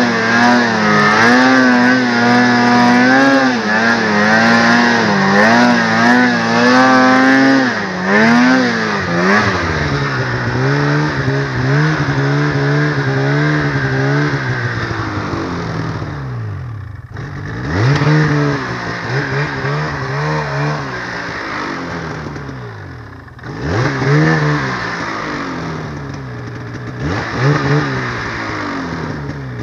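Polaris snowmobile engine running hard through deep snow, its pitch wavering with the throttle. About eight seconds in the revs fall. Later the engine drops off and climbs back up in quick throttle blips a few times.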